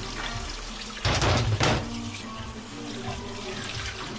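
Water from a kitchen tap running into a stainless steel sink as a gutted carp is rinsed under it. There is a louder burst of splashing, under a second long, about a second in.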